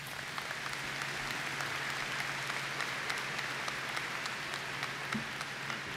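Audience applauding: dense steady clapping that swells up in the first second and holds.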